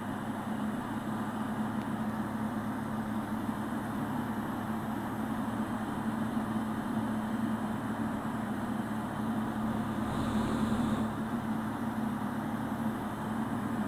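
Ikarus C42 microlight's engine and propeller droning steadily in flight, heard from inside the cockpit, with a brief swell of higher hiss about ten seconds in.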